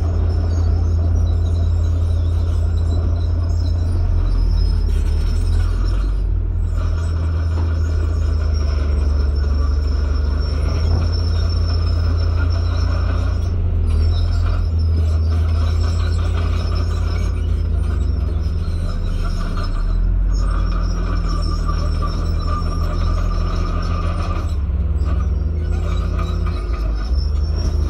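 Komatsu crawler bulldozer's diesel engine running steadily as the machine pushes gravel and soil.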